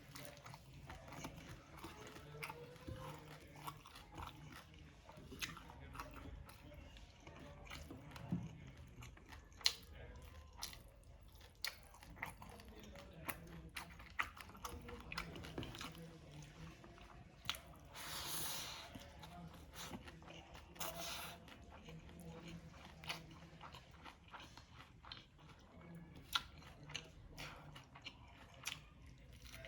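A person chewing and biting crispy fried fish close to the microphone, with many small crunches and wet mouth sounds. There are two short hissing rustles about two-thirds of the way through.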